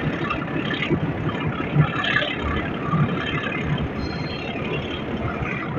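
Metre-gauge passenger train running: a steady rumble and rattle of the carriage and wheels on the track, with irregular low thumps.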